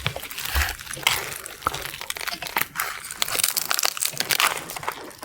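Eating sounds: crisp crunching and crinkling, a dense irregular run of sharp clicks and rustles.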